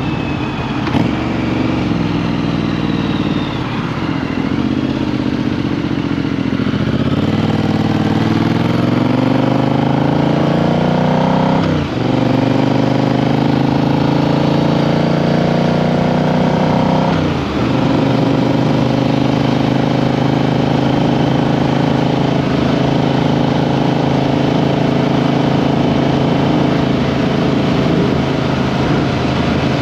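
Triumph Street Twin 900's parallel-twin engine accelerating. Its pitch climbs from about a quarter of the way in, drops sharply twice for upshifts near the middle, then settles into a steady cruise.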